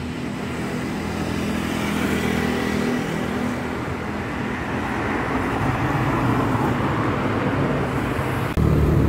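Road traffic noise around a motorcycle rider: motor vehicle engines running steadily with the hum of the street. A louder low rumble comes in abruptly near the end.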